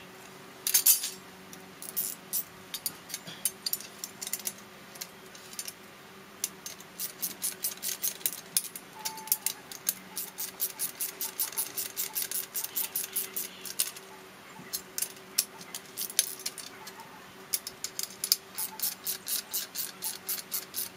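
Socket ratchet clicking in quick runs, with short pauses, as the nuts that bolt the two stacked mower blades together are run down and tightened.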